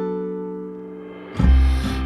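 Instrumental passage of a pop-folk song with no singing: a held chord fades away, then a deep bass note comes in loudly near the end.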